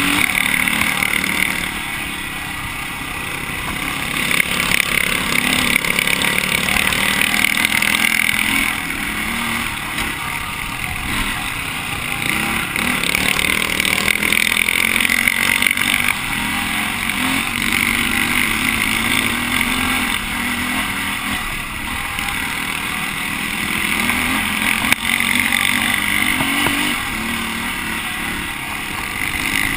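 Dirt bike engine running as the bike rides along a dirt trail, with rushing noise over it; the engine sound swells and eases every few seconds with the throttle.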